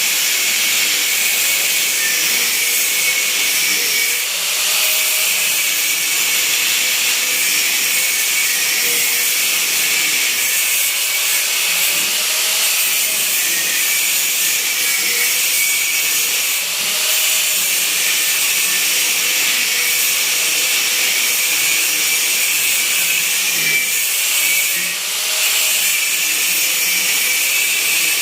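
A handheld power tool running continuously on a car body panel with a steady, high-pitched hiss, easing off briefly three times.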